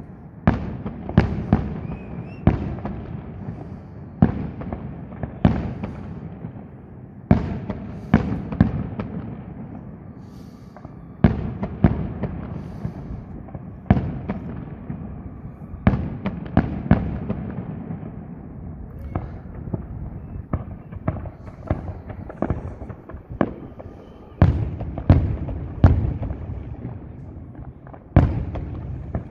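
Aerial fireworks display: shells bursting with sharp bangs every second or two, each trailing off in a low rumble, with a run of quicker pops and crackles in the middle.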